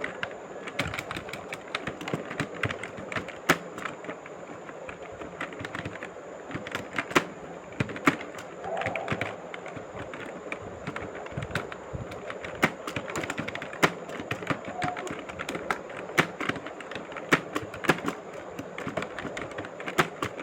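Keyboard keys being typed in a continuous, irregular stream of clicks, several a second, with some strokes much louder than the rest.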